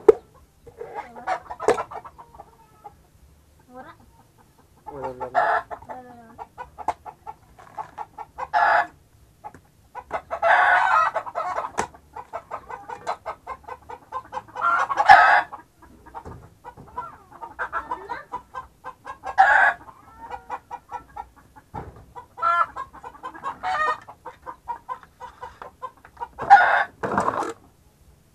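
Chickens clucking in short bursts throughout, with a rooster crowing several times. A few sharp knocks come from a bolo knife chopping into a green coconut.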